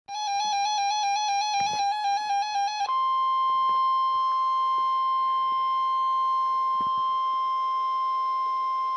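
NOAA Weather Radio emergency alert. About three seconds of a warbling, rapidly alternating tone, then a steady 1050 Hz warning alarm tone that stops sharply near the end. The tone signals that a warning broadcast follows.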